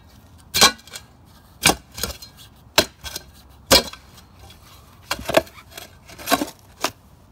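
Shovel blade chopping into packed soil and stones, about nine sharp strikes at an uneven pace, roughly one a second.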